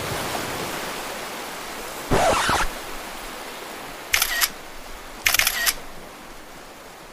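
Steady rush of surf on a beach, slowly fading, broken by three short sharp sounds about two, four and five seconds in, the last two alike.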